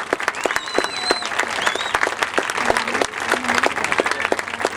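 Large crowd applauding with dense clapping, and high-pitched cheering cries rising over it in the first two seconds.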